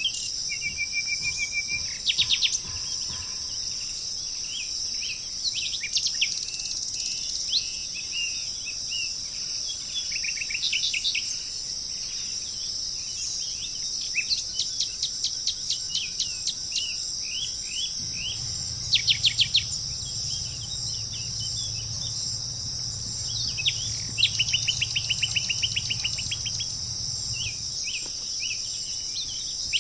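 Several songbirds chirping and trilling in short, repeated phrases, some in rapid trills, over a steady high-pitched insect drone.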